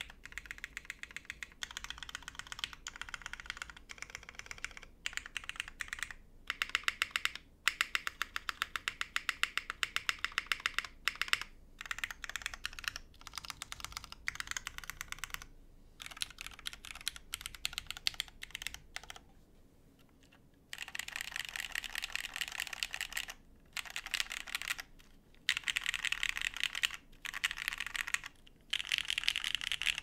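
Typing on a GHS.RAR mechanical keyboard with lubed, broken-in Cherry Hyperglide MX Black linear switches, GMK keycaps and a full aluminium plate. Rapid keystrokes come in bursts with short pauses between them.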